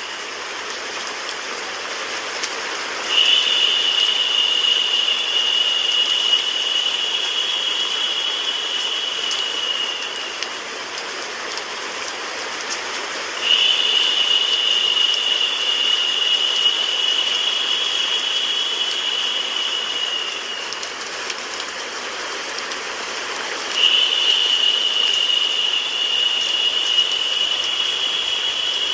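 Steady mix of rain sound and white-noise hiss. A brighter, louder band of hiss swells in about every ten seconds and lasts about seven seconds each time.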